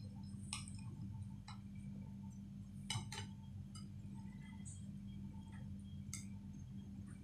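A knife clinking against a plate while cutting an omelette into wedges: several faint, separate clinks spread over the seconds, the loudest about three seconds in, over a steady low hum.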